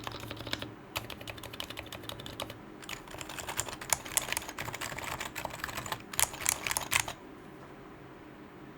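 Fast typing on a Topre electro-capacitive keyboard (Sho66 case with Leopold FC660C rubber domes and conical springs, brass plate, lubed Topre housings, PBT keycaps), a rapid run of keystrokes with a few louder strokes, stopping a little before the end.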